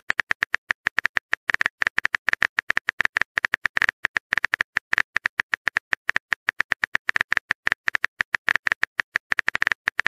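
Phone keyboard typing sound effect: a fast, even run of short electronic key clicks, about nine a second, as a text message is typed out.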